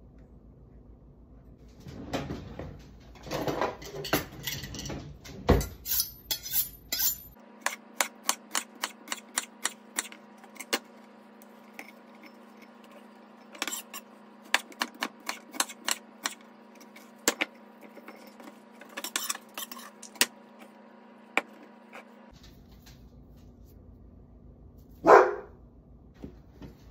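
Food-prep sounds on a wooden cutting board: a knife taps the board in a long run of quick, even strokes, about three to four a second, with clinks from a glass Weck jar being handled. There is one loud knock near the end.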